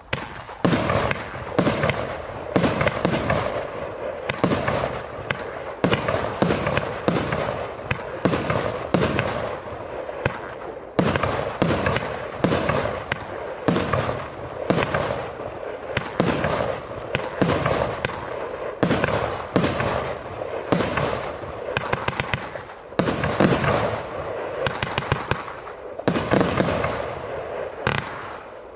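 Zeus King Midas 35-shot firework barrage cake firing shot after shot: sharp launches and aerial bursts come roughly one to two a second, some trailed by rattling runs of small pops.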